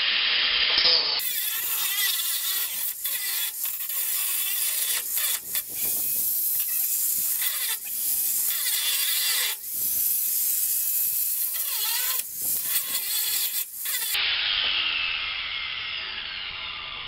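Angle grinder cutting through the sheet-steel body of a vending machine, a loud harsh hiss of disc on metal with a few short breaks. About three-quarters of the way through the cutting stops and the grinder's whine falls and fades as the disc spins down.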